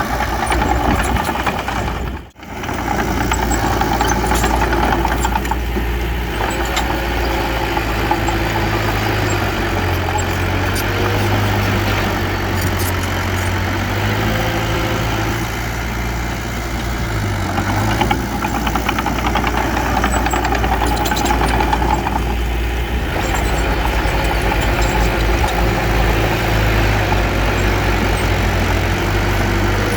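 Heavy earthmoving machinery's diesel engine running steadily, its pitch shifting as the load changes. The sound drops out sharply for a moment about two seconds in.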